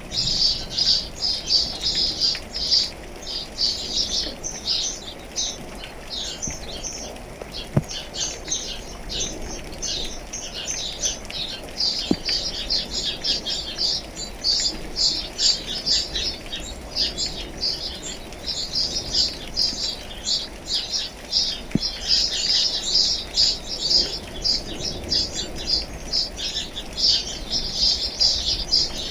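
A crowd of small birds chirping rapidly and continuously, many short high notes overlapping, over a soft, even patter of rain.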